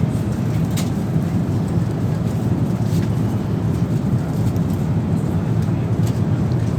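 Steady low rumble of an Airbus A380's cabin at cruise: engine and airflow noise, with a couple of faint clicks.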